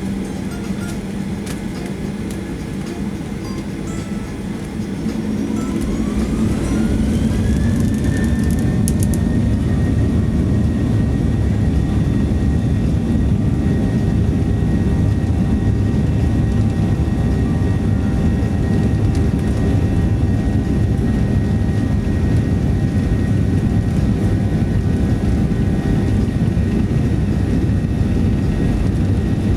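Boeing 737-800's CFM56-7B turbofan engines heard from inside the cabin, spooling up to takeoff thrust. About five seconds in, a whine rises in pitch and settles into a steady high tone over a loud, steady rumble.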